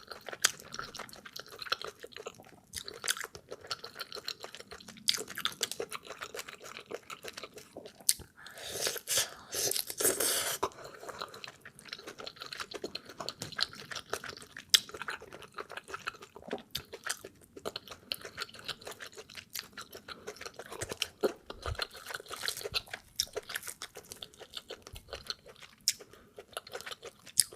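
Close-miked eating sounds of fufu being eaten: steady chewing with many short mouth smacks and clicks, and a louder stretch of about two seconds around nine seconds in.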